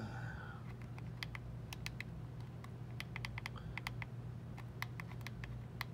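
Small plastic clicks from the Moza Air 2 gimbal's control dial and menu button as a thumb scrolls through the handle's menu: an irregular run of quick clicks, a few close together and then pauses, over a steady low hum.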